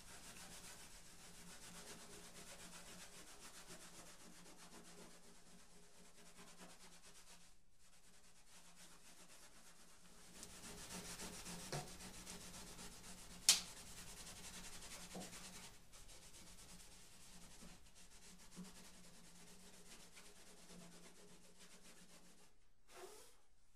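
Steel wool rubbed quickly back and forth over the black-painted body of a musky fish replica, making a faint, steady scrubbing hiss. This is the stage where the black base coat is knocked back to bring out the scale detail. About halfway through comes one sharp click.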